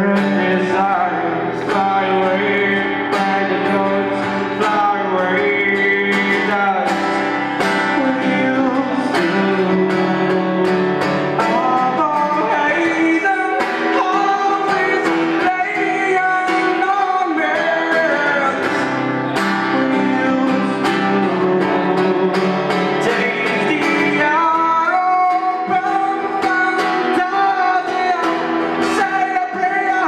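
A man singing to his own acoustic guitar, strumming steadily as he sings a slow song.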